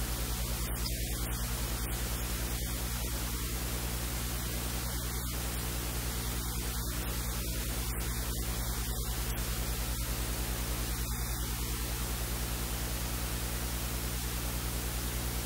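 Steady electrical hiss with a low mains hum and buzz, unchanging throughout; the breading at the counter is not heard over it.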